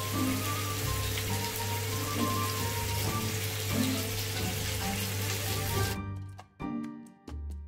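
Beef strips, onions and carrots frying in butter in a pan, a steady sizzle under light instrumental background music. About six seconds in the sizzle cuts off suddenly, leaving the music alone.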